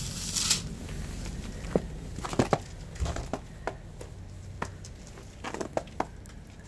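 A plate of dry cat food is set down with a brief scraping rustle, then a run of short, irregular clicks and crunches as stray cats come to the plates and eat the kibble.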